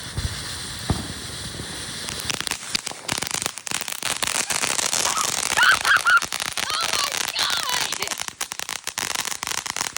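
Firework fountain burning, its steady spray of sparks breaking into a dense, rapid crackle about two seconds in that grows louder.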